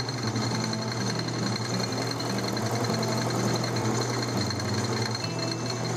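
A lathe set up for milling, running a four-flute end mill that takes light cuts of about ten thousandths to square the head of a small bolt. The sound is a steady machine hum with a constant high whine over it.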